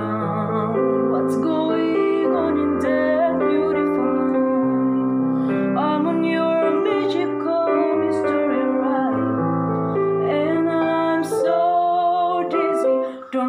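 A woman singing a pop song live, accompanied by piano, with a short break in the sound just before the end.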